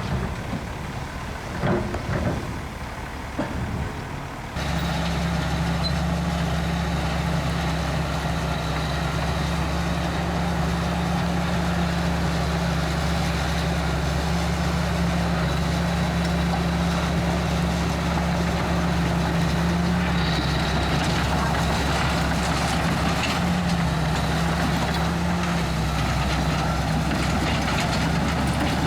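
A heavy diesel earthmoving engine running steadily at an even speed. It is preceded by a few seconds of irregular knocking and clatter that stops abruptly about four and a half seconds in.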